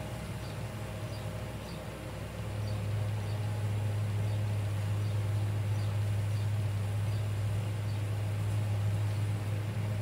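A steady low hum that gets louder about two and a half seconds in, with faint, evenly spaced high ticks repeating about every half second.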